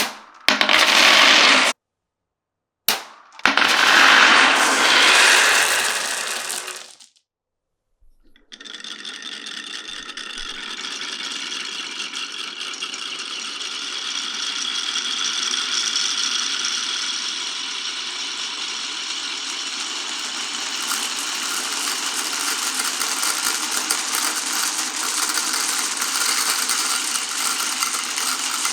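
Glass marbles rattling and clattering through a marble run's tracks. Two short loud bursts come in the first seven seconds, each cut off to dead silence. From about eight seconds in, a dense continuous rattle of many marbles rolling runs on.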